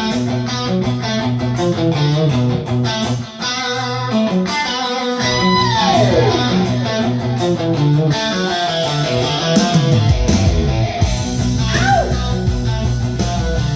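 Guitar-led instrumental intro of a song, before the vocals come in. About six seconds in there is a falling swoop, and about ten seconds in a fuller bass end joins the guitar.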